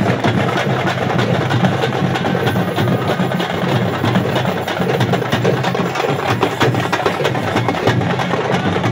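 Several large stick-beaten drums played by a procession drum group in a fast, unbroken rhythm, over the din of a dense crowd.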